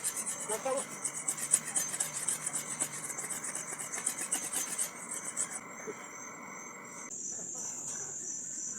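Wooden cane pole being scraped with quick repeated rasping strokes for about five seconds. Then the strokes stop and crickets chirp steadily.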